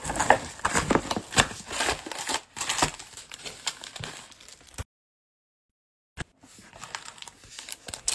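Cardboard box flaps and sealed foil trading-card packs rustling and crinkling as the packs are pulled out of a mega box and handled, with a run of small clicks that thins out after about two seconds. The sound drops to complete silence for over a second past the middle.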